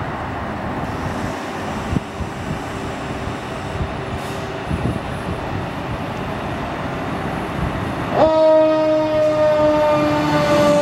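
Vehicle engine and road noise, then about eight seconds in an air horn sounds suddenly and holds, several tones at once that slowly sag in pitch.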